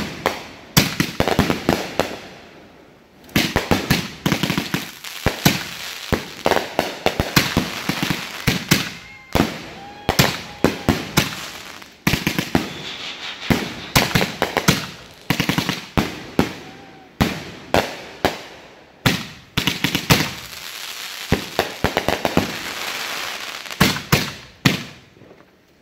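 Consumer aerial fireworks firing in rapid, irregular succession: sharp bangs and pops of launching and bursting shells, with crackle and hiss between them. There is a short lull a little past the middle, then a denser stretch of crackling before more bangs.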